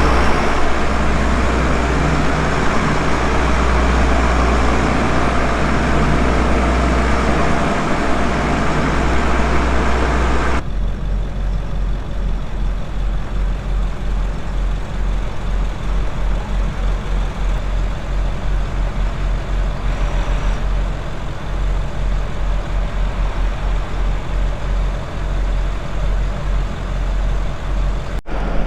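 Large farm tractor's diesel engine running steadily. About ten seconds in the sound drops abruptly to a quieter, low throbbing run.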